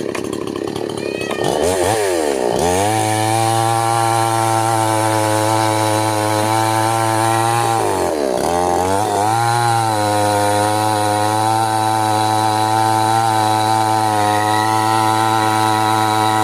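Chainsaw engine revved up to a high, steady speed about two seconds in. About eight seconds in it briefly drops and climbs back, then holds at high speed again.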